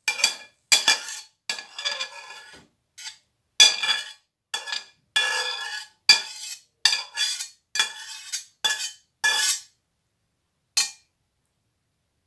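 Metal spatula scraping and knocking against a stainless steel pan while stir-fried food is scooped out onto a plate: a quick run of scrapes and clanks with a metallic ring, with a single last clank near the end.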